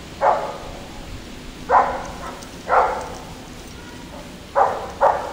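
Labrador retriever barking: five short, sharp barks at uneven intervals, the last two in quick succession near the end.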